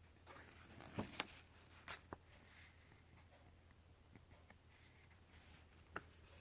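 Quiet handling of a paperback coloring book as its pages are turned: a few soft paper rustles and short taps, clustered about a second and two seconds in and once more near the end, over a low steady hum.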